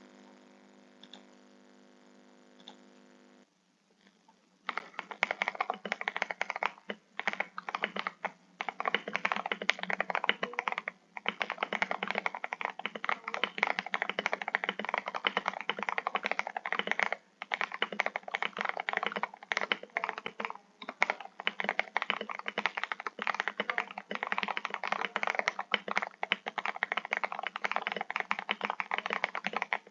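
Typing on an RK G68 mechanical keyboard with TTC Gold Pink linear switches: fast, dense keystrokes with a few short pauses. They begin about five seconds in, after the last of some soft music fades out.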